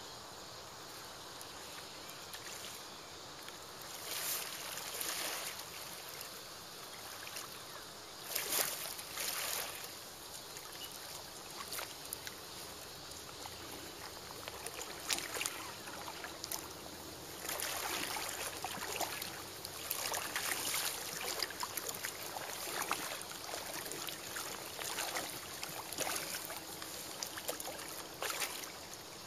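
River water splashing and sloshing in irregular bursts, busiest through the second half.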